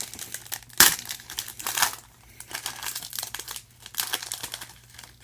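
Foil wrapper of a Panini football card pack being torn open and crinkled by hand: a run of irregular crackles and crinkles, the sharpest a little under a second in.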